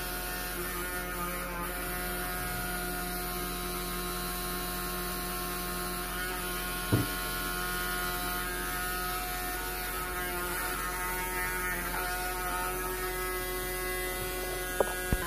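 Homemade motor-driven generator rig running with a steady electrical hum and a stack of thin, steady whining tones above it. A sharp click about seven seconds in and two more near the end.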